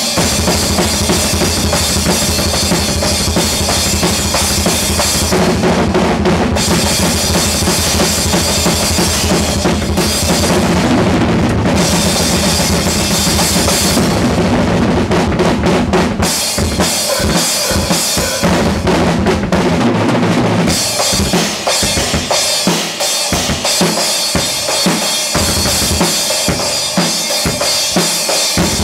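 Acoustic drum kit played solo, fast and dense: bass drum, snare and toms under a constant wash of cymbals. The low drum hits run together in a rapid stream through the first half and become more spaced out in the last third.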